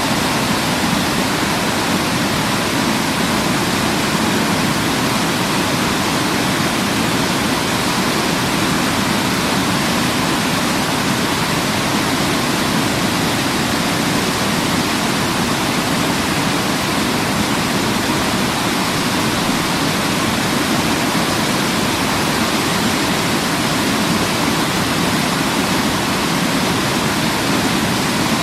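Waterfall rushing steadily, an even, continuous roar of falling water with no change in level.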